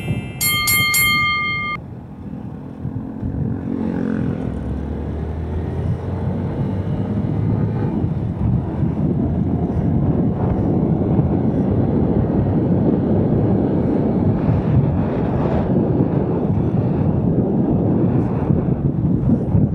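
A single-cylinder Yamaha SZ motorcycle is ridden at road speed, heard through a helmet-mounted action camera, with wind buffeting the microphone over the road noise. A few seconds in, the engine's pitch climbs as the bike accelerates. At the very start a short bright chime sound effect plays with an on-screen "subscribed" graphic.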